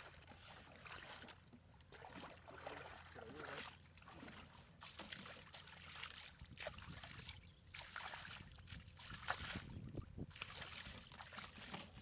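Faint, irregular splashing and sloshing of shallow muddy water as a person wades through a ditch and gropes with his hands under the surface.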